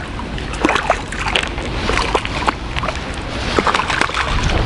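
A hooked crucian carp thrashing at the water surface as it is reeled in on a float rod, making repeated irregular splashes.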